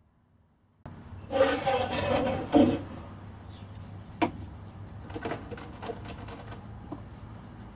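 A workshop machine switched on about a second in and running with a steady hum, with a louder burst just after it starts. A few sharp knocks follow as a wooden board is set down on a metal machine table.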